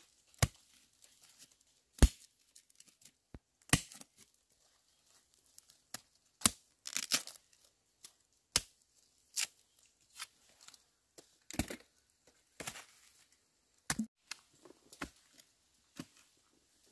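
Bamboo shoots being snapped off and handled: irregular sharp cracks and knocks, about one a second, with tearing and crinkling sounds between them.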